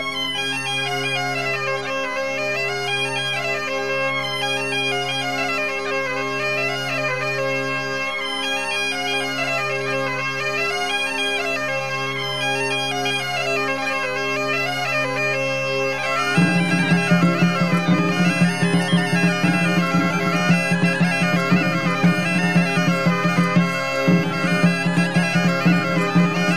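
Bagpipe playing a folk tune over a steady drone. About 16 seconds in the tune changes, with a different drone note and a more pulsing, accented rhythm.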